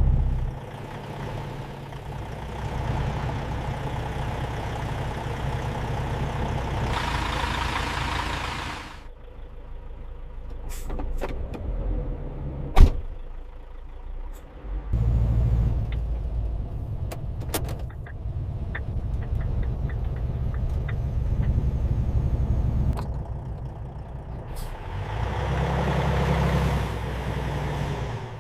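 Truck engine running with road noise, changing abruptly several times. Scattered clicks and one sharp knock come about halfway through.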